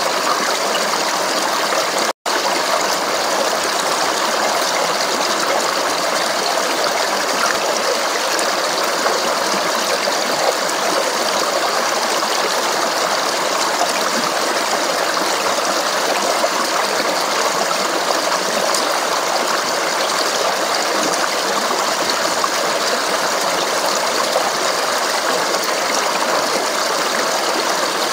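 Steady babbling of a stream flowing and splashing over rocks. It cuts out for an instant about two seconds in, then runs on unchanged.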